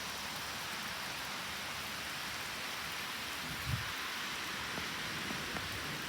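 Heavy thunderstorm rain pouring steadily, with one short low thump a little past halfway.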